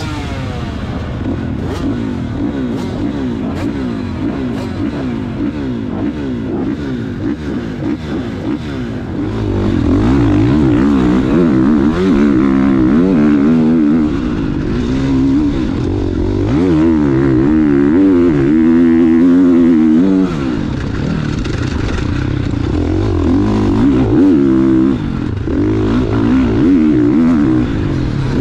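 Four-stroke KTM SX-F motocross bike engine heard close up from a helmet camera, revving hard with its pitch repeatedly rising and falling as the throttle is worked through the gears. It gets louder from about ten seconds in.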